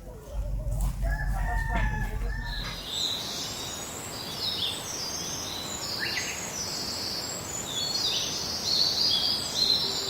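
A rooster crowing once over a low rumble. The rumble cuts off just before three seconds in, and a dense chorus of small birds chirping high takes over.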